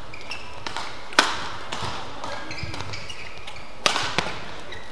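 Badminton rally: two sharp racket hits on the shuttlecock, about a second in and nearly three seconds later, with lighter knocks and short high squeaks of players' shoes on the court mat between them.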